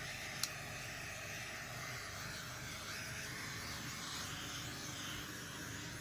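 Small handheld butane torch hissing steadily as its flame is passed over a wet acrylic paint pour, with a sharp click about half a second in.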